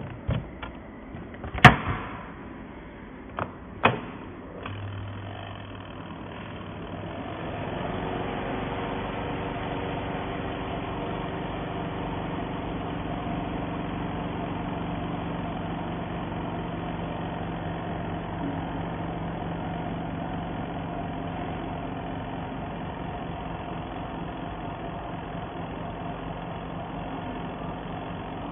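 Small twin-tub portable washing machine's electric motor starting up and running steadily with an even hum. Three sharp knocks come in the first few seconds, before the motor starts.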